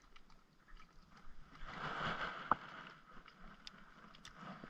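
Water sloshing against the side of a small fishing boat, swelling for about a second midway through, with a few light clicks of fishing-rod and reel handling.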